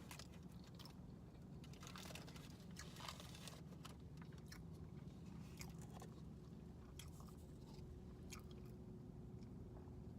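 Faint, close-up chewing of a McDonald's Sausage McMuffin: irregular soft crackly mouth clicks over a steady low hum.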